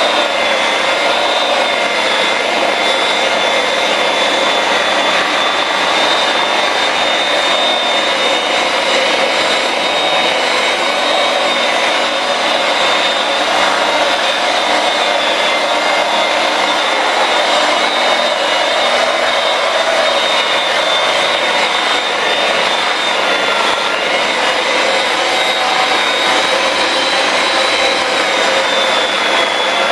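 Electric rotary polisher with a foam pad running steadily against car paintwork: a continuous high motor whine that wavers slightly in pitch as the pad is worked along the panel. It is cutting back the raised touch-up paint in a filled key scratch.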